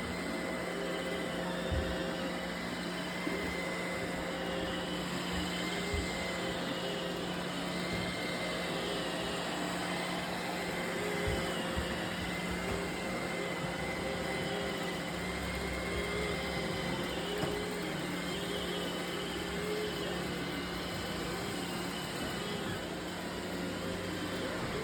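Roomba robot vacuum cleaners running: a steady motor and brush whir with a low hum and higher tones that waver up and down, and a few light knocks.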